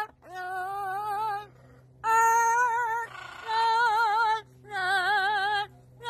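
Amazon parrot singing in a high, operatic-style voice: three long held phrases with a wavering vibrato, with a breathy hiss partway through the middle one.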